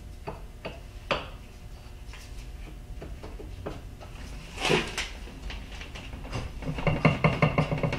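Light metal clicks and knocks of a milling machine's leadscrew dial hub being slid and pushed onto the shaft at the power feed bracket, with a louder brief scrape a little under five seconds in and busier clicking near the end.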